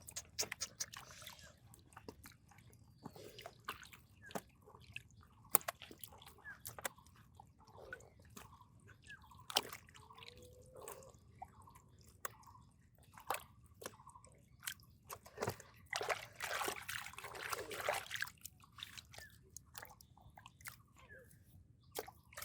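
Hands working through wet mud and shallow water: scattered squelches, drips and small splashes, with a longer spell of splashing about sixteen seconds in.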